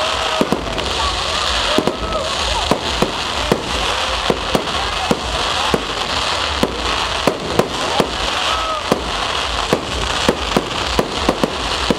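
Aerial fireworks going off in a rapid, irregular run of bangs and pops, several a second.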